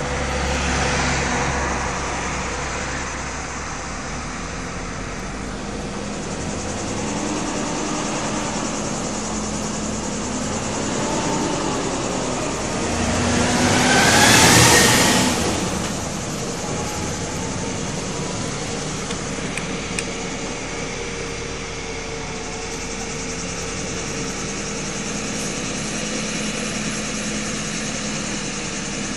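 Road traffic: heavy trucks passing close by over a steady engine drone. The loudest is a truck going by about halfway through, a rush of tyre and engine noise that swells and fades within a few seconds.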